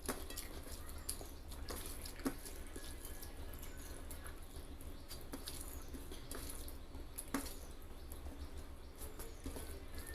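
Close-up wet eating sounds from rice with egg curry and gravy: moist chewing, squishing and lip smacks, with scattered sharp clicks, the loudest about two seconds in and again past seven seconds.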